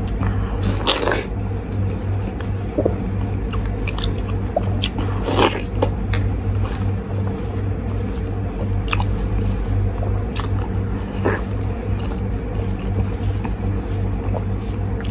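Background music with a steady low pulse. Over it come a few short, wet bites and slurps at watermelon flesh, the clearest about a second in, at about five seconds and at about eleven seconds.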